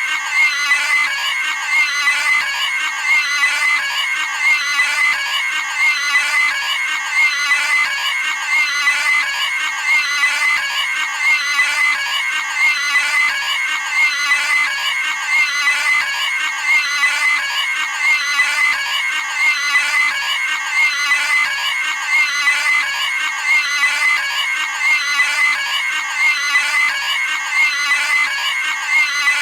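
Cartoon pig's high-pitched screaming squeal, a sound effect looped over and over without a break.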